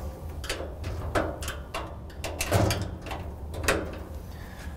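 Flat-blade screwdriver prying the hinge pins down on the steel door of a Rittal TS8 enclosure: an irregular run of sharp metallic clicks and taps.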